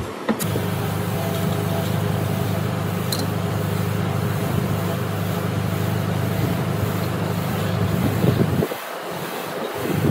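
A motor running with a steady low hum, stopping suddenly near the end.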